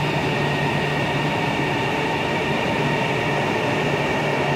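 High-speed electric train pulling out along the platform: a steady hum of running gear and motors with several held tones over even rolling noise.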